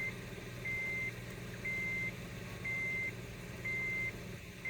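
Steady electronic beeping: a single high tone about once a second, each beep about half a second long, over a faint steady low hum.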